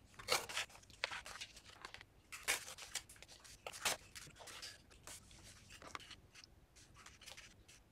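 Sheets of painted paper rustling and crinkling as they are handled and laid onto a spiral-bound sketchbook, with a page being turned; soft, irregular crackles and taps.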